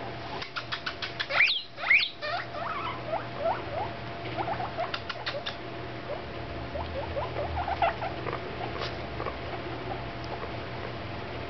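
Guinea pigs squeaking: two loud rising wheeks about one and a half and two seconds in, then many short, soft rising squeaks, with scattered quick clicks.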